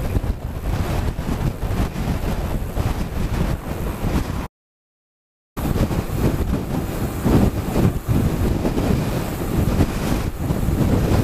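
Strong wind buffeting the microphone of a bike-mounted camera on a moving bicycle, a dense low rumble of noise. About four and a half seconds in, the sound cuts out completely for about a second, then the wind noise resumes.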